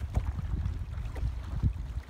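Wind buffeting the phone's microphone: an uneven low rumble.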